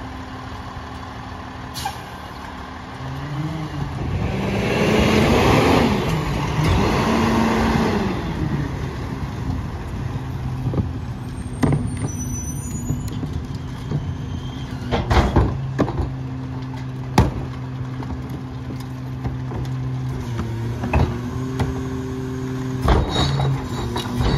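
Freightliner McNeilus rear-loader garbage truck's diesel engine revving up as it pulls forward, with a loud air hiss from about 4 to 8 seconds in, typical of the air brakes. Then it settles to a steady idle, with a few sharp knocks scattered through the rest.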